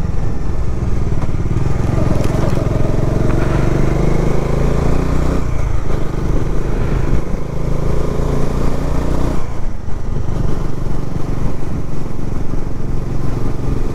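Bajaj Dominar 400's single-cylinder engine running as the motorcycle is ridden, its pitch rising and falling a little with the throttle, over a steady low rush of road and wind noise.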